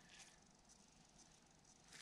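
Near silence, with faint brief rustling from gloved hands handling a resin-wet carbon fiber tow.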